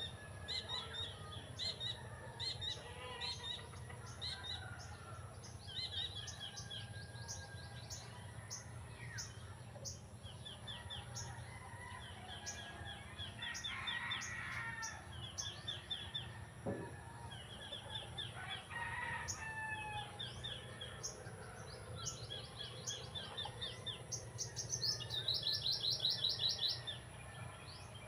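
Chickens and roosters calling, with a steady run of quick repeated chirps; a couple of longer calls come about halfway through, and the loudest series of quick chirps comes near the end.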